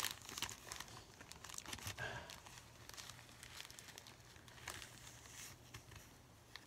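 Clear plastic zip-top bag crinkling faintly in the hands as its zip seal is pressed and worked, in a string of irregular crackles.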